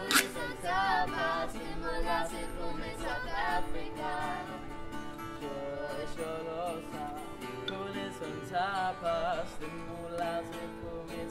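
Acoustic guitar strummed under singing, with a girl's voice leading and holding notes with vibrato.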